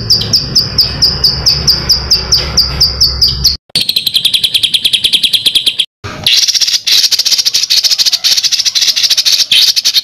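Recorded songbird song spliced together: a run of sharp, falling chirps about four a second over a low rumble, cut off abruptly about three and a half seconds in, then a fast trill, and after a brief gap a long, rapid, buzzing trill.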